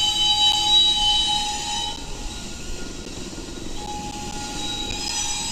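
Norfolk Southern diesel locomotives passing on a curve, with their wheels squealing in several steady high-pitched tones over a low rumble. The squeal fades about two seconds in and comes back near the end.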